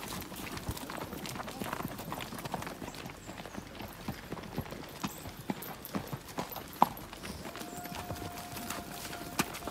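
Horses' hooves clip-clopping at a walk on a packed-dirt track, an uneven stream of hoofbeats from several horses, with one sharper knock about seven seconds in. A faint steady held note runs through the last couple of seconds.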